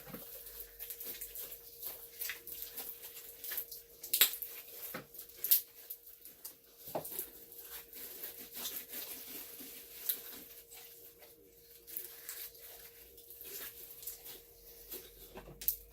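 Hands kneading and squishing sticky, fluffy homemade slime (glue, shaving cream and borax activator) in a bowl: irregular wet clicks and squelches, with a couple of sharper pops around four and five and a half seconds in. A faint steady hum runs underneath.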